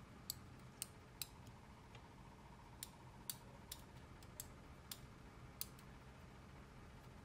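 About nine light, sharp clicks at irregular intervals over near silence, from handling plastic tatting shuttles and thread by hand.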